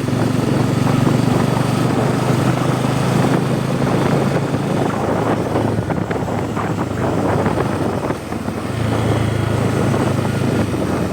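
Bajaj Pulsar N250's single-cylinder engine and exhaust running steadily while riding, with road and wind noise. The engine note drops briefly about eight seconds in, then picks up again.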